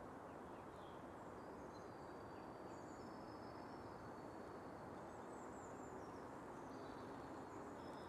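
Faint outdoor nature ambience: a steady low rushing hiss with thin, high bird chirps and whistles scattered through it, one held whistle lasting about a second and a half near the middle.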